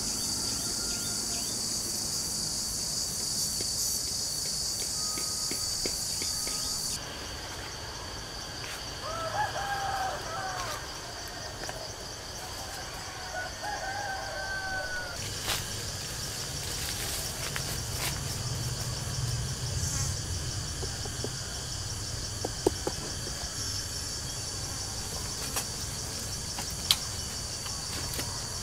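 Insects chirping in a steady, high, continuous trill, with a bird calling twice near the middle and a few faint clicks toward the end.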